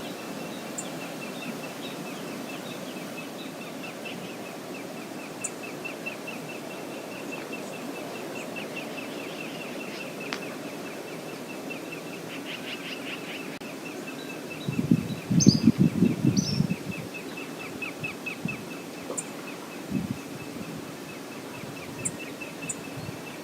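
Steady rush of the waterfall and river, with a bird trilling over and over on one high pitch and a few short high chirps. About fifteen seconds in, a couple of seconds of loud, heavy splashing.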